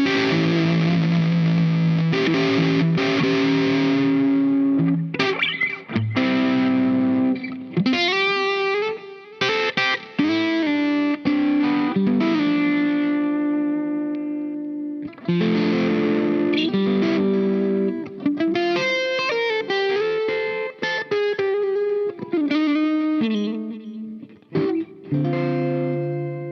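Fender Aerodyne Special Stratocaster played through a Dazatronyx RAD, a RAT-style distortion pedal. It plays heavily distorted chords that are held and ring out, broken by short breaks and quick single-note runs with slides. A last chord is left to ring and fade near the end.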